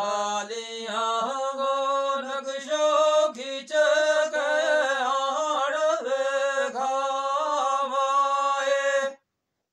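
Unaccompanied male singing: a long, ornamented vocal line, held and gliding in pitch, that cuts off suddenly about nine seconds in.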